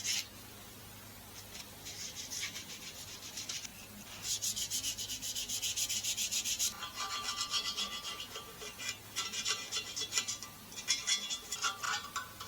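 Sanding parts of an Atlas band saw before painting: sandpaper rubbing in quick, even strokes, in several stretches with short pauses between them.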